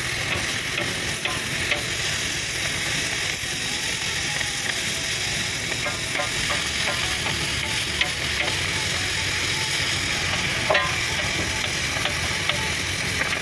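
Oxy-fuel cutting torch piercing and cutting a round hole through a steel flat bar: a steady hiss of the flame and cutting-oxygen jet with the crackle of molten metal spraying off as sparks, and a few sharp pops.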